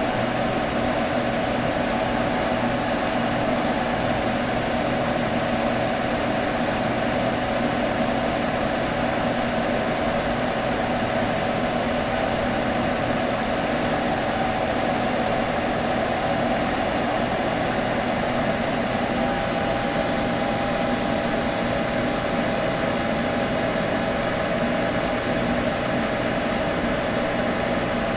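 Computer running with a steady humming whir: a constant mid-pitched hum over an even hiss, with no change in level or pitch.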